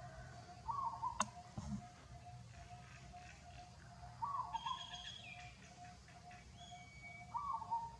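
Short animal calls repeated three times, about three seconds apart, over a steady fast pulsing tone, with a few higher chirps in the middle and one sharp click about a second in.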